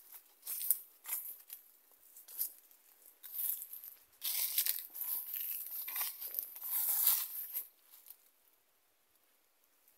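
Dry grass and leaves rustling and crunching in irregular bursts as someone moves through them, with one longer stretch in the middle. It stops about eight seconds in.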